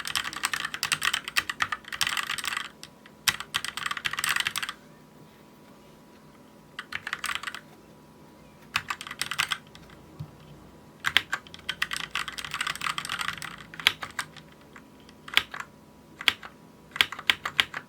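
Keychron K6 mechanical keyboard with red linear switches being typed on: several bursts of fast keystrokes with short pauses between them, then slower single key presses in the last few seconds.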